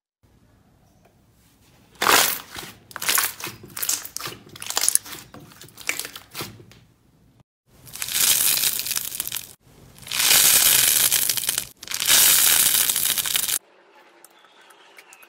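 Hands squeezing and tearing crunchy slime: dense crackling pops for several seconds, then three long rough crunching stretches as a pink porous foam slime is pulled apart. Faint soft squishing near the end.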